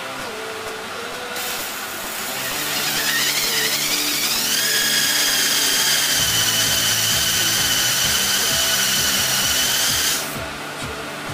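Electric motorcycle's traction motor spinning up on the test rig under computer control: a whine that rises in pitch over about two seconds, then holds steady with a hiss, and cuts off shortly before the end. Background music runs underneath.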